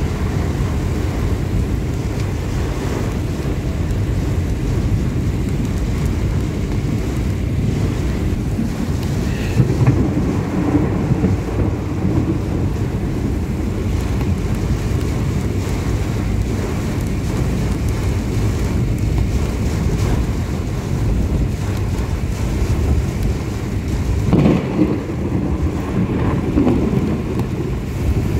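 Wind and heavy rain of a thunderstorm, the wind buffeting the microphone in a loud, steady low noise, with brief louder surges about ten seconds in and near the end.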